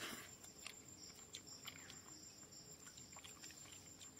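Near silence outdoors: a faint, steady high insect trill, typical of a cricket, with a few soft scattered clicks.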